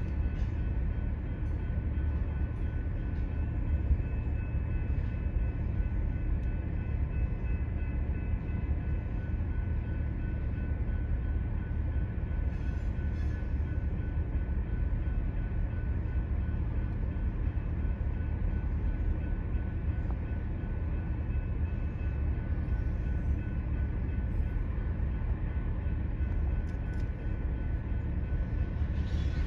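Freight train at a grade crossing: a steady low rumble with a few faint, steady high tones above it.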